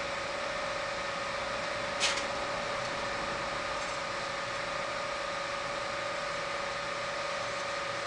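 Steady background hum with a constant high-pitched tone over a faint hiss, and a single light click about two seconds in.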